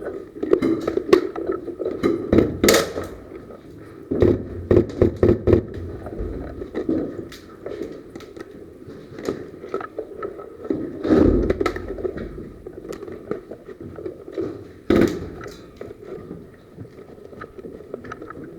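Irregular knocks, clicks and scuffs from a player moving about and handling gear, with a quick run of clicks about four seconds in and a few harder knocks later.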